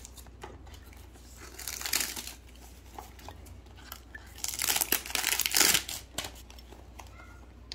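Packaging crinkling and rustling as it is handled, in two bouts: a short one about two seconds in and a longer one from about four and a half to six seconds.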